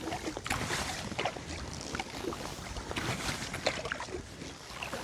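Kayak paddle strokes on calm lake water: the blades dipping, splashing and dripping in repeated irregular strokes over a steady wash of water.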